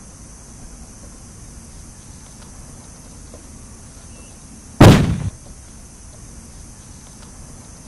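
A single loud bang about five seconds in, lasting about half a second: a booby-trapped gift box bursting open and blowing out a cloud of powder.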